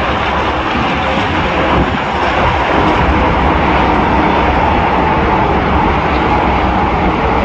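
Jet airliner on final approach with its landing gear down, passing low: the engines make a loud, steady rush with a faint whine running through it.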